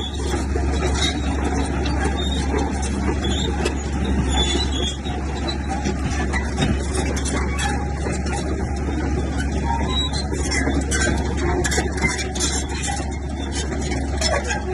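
Komatsu bulldozer's diesel engine running steadily, with a constant low drone, plus repeated clanking and squeaking from the steel tracks.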